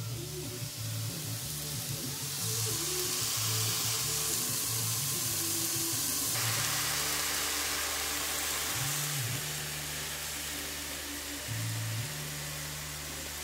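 Minced meat sizzling in a hot frying pan, a bright hiss that starts about two seconds in and fades out after about seven seconds, over background music with a steady low bass line.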